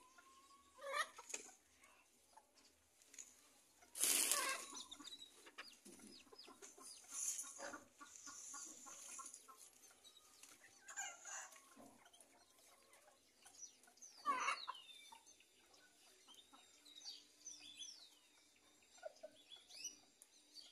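Chickens clucking now and then, with one brief loud noisy burst about four seconds in.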